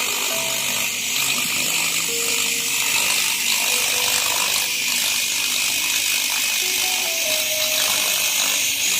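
Handheld fibre laser cleaning head in operation: a steady high hiss with a rapid fine crackle as the laser pulses ablate the metal surface.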